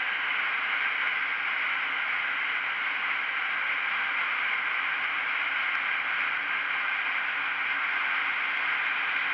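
Steady rushing wind noise on a handlebar-mounted camera's microphone from a KTM Duke 125 motorcycle riding at speed. The single-cylinder engine hums faintly beneath it.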